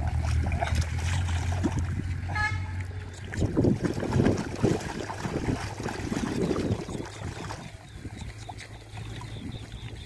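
Hands splashing and churning shallow muddy water while groping in the mud for a catfish, loudest from about three and a half to seven seconds in. A steady low hum runs underneath until about three seconds in, and a short tone sounds just before it stops.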